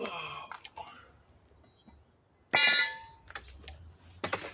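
Metallic clinks, then about two and a half seconds in a loud ringing metal clang, and a shorter clatter near the end, from the kick-start lever of a 1990 Yamaha YZ490 dirt bike being worked and kicked. The engine does not fire.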